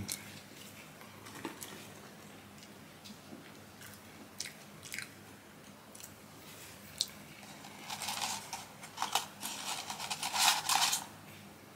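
Close-up eating sounds: scattered small clicks and chewing, then about eight seconds in a few seconds of dense paper crinkling as a hand rummages in a Burger King paper fries carton.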